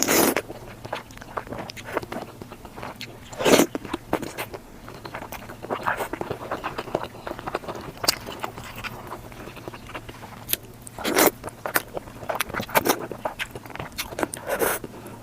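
Close-miked mukbang eating: biting and chewing with wet clicks and crunches, a few bites louder than the rest, played back at double speed.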